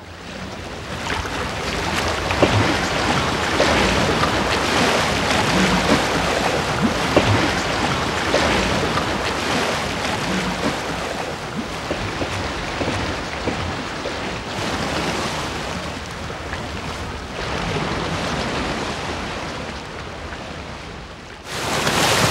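Ocean waves and surf washing, a steady rushing noise that swells and eases. Near the end comes a short, louder rush of water.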